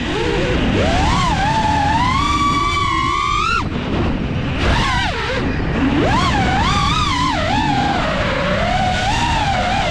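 Brushless motors and propellers of a 5-inch FPV quadcopter whining, the pitch rising and falling all the time with the throttle, over a low rush of wind and prop wash on the onboard camera. The whine cuts out briefly about three and a half seconds in, then comes back.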